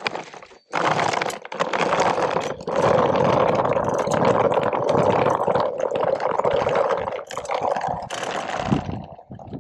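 Hard plastic toy-wagon wheels rolling over rough asphalt and gravel: a continuous scraping, rattling rumble that starts about a second in, dips briefly, and fades near the end.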